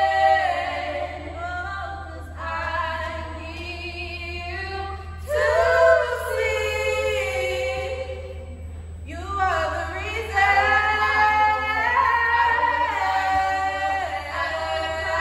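Four female voices singing together in harmony, a cappella, in phrases with brief breaks about two, five and nine seconds in, carried by the reverberant space of a school gymnasium.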